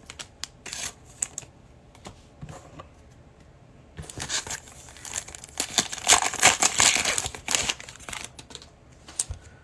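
A foil trading-card pack wrapper being torn open and crinkled, loudest in a dense crackle from about four to eight seconds in. Light scattered clicks of card handling come before it.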